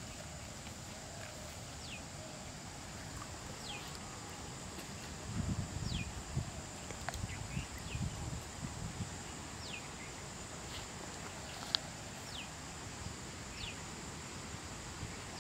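A bird repeating a short, falling call every second or two over a steady high-pitched insect drone. A few seconds of low rumbling come near the middle, and one sharp click comes later.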